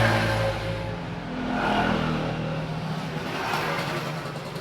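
A motor vehicle engine running, its low hum shifting in pitch about a second in.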